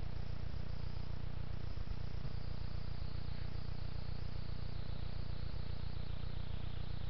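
A steady low electrical hum from the trail camera's recorder, with faint high insect chirring, most noticeable in the middle.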